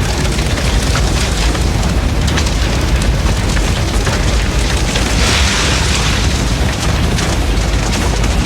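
A large structure fire burning steadily: a deep, continuous rumble of flames with constant crackling and snapping, and a brighter hissing swell about five seconds in.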